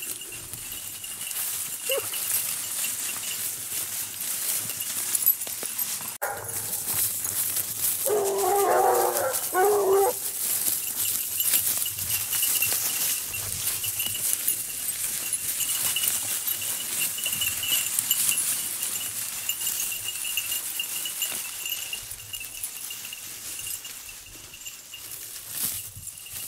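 Blue Gascony basset hounds giving tongue: a short yelp about two seconds in, then a burst of baying lasting about two seconds a third of the way through, over a steady rustle of dry leaves.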